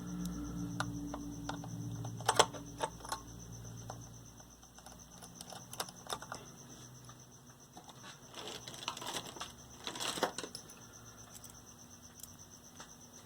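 Scattered clicks and small knocks of hand tools and small parts being picked up and handled, in two busier clusters, with a low hum that fades out in the first few seconds.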